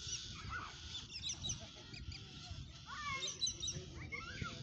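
A chorus of birds calling: many short rising and falling calls and high twittering, busiest near the end, over a low rumble.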